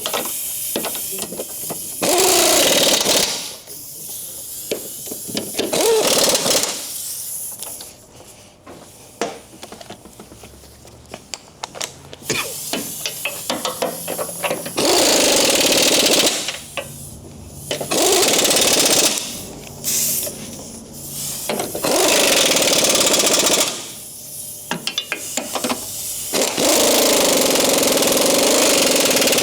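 Impact wrench running in the subframe bolts in repeated bursts of one to three seconds, about seven in all, with quieter gaps of small metallic clicks between them.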